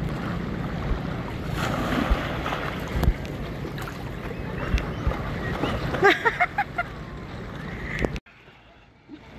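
Wind buffeting the microphone over shallow sea water lapping around a paddleboard. About six seconds in there is a brief burst of a person's voice, and the sound drops away abruptly near the end.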